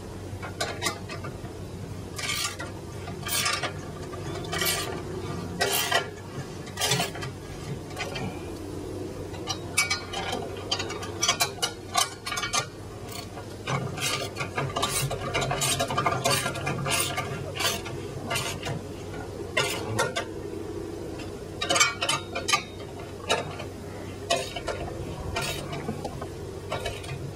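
Metal tools clinking and tapping on the bolts of a clamp around a linear actuator's tube as the bolts are tightened, in irregular clicks, some in quick clusters.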